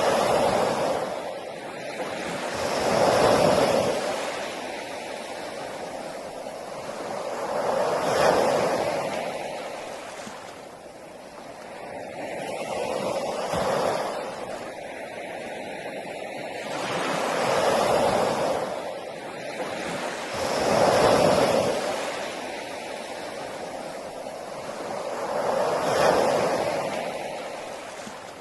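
Sea waves breaking on the shore, one after another: seven swells of surf, each rising and washing away, about every four to five seconds.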